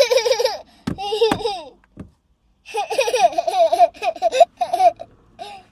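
A small child laughing in quick repeated bursts, in two runs with a short pause about two seconds in.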